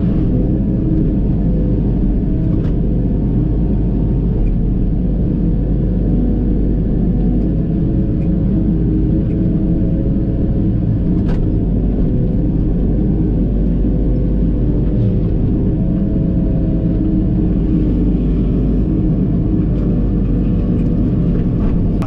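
Prime Tech PT175 tracked forestry mulcher running under load with its FAE mulcher head grinding brush, heard inside the cab: a loud, steady drone of the Cummins diesel and the spinning head, with a few faint sharp ticks.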